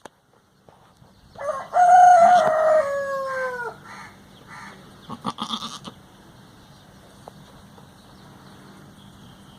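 A rooster crowing once: one long call held steady, then falling away at the end. A few seconds later comes a short run of brief calls.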